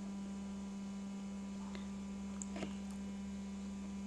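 Steady electrical hum on the recording, held at one low pitch, with a few faint short clicks.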